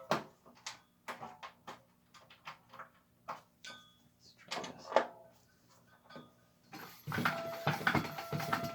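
Scattered clicks and knocks of handling, then about seven seconds in a small air pump starts suddenly, a steady hum with hiss, inflating a tubeless bicycle tyre to show where the sidewall cut leaks.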